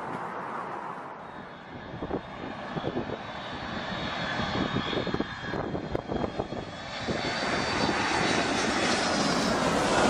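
Wind buffeting the microphone, then a jet airliner on low final approach: its engine whine and roar grow louder over the last few seconds as it comes overhead.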